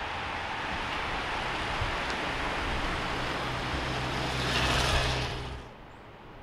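A pack of racing bicycles rushing past, tyres and freewheels making a steady hiss, then a motorcycle riding by close, its engine loudest about five seconds in. The sound drops away abruptly just before the end.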